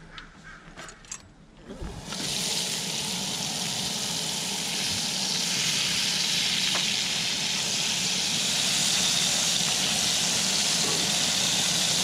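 Chunks of albacore tuna sizzling in hot oil in a cast-iron skillet on a camp stove. After a few faint clicks, the sizzle comes in loud about two seconds in and holds steady.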